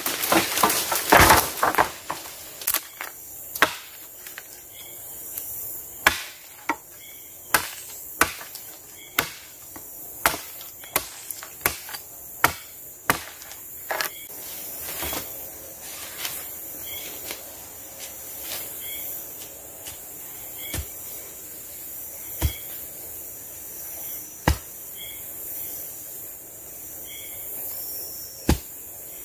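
A blade chopping at a wooden pole: sharp knocks, quick at first, about one a second, then every couple of seconds. Before the chopping there is a loud rustle of undergrowth, and a steady high insect drone runs underneath.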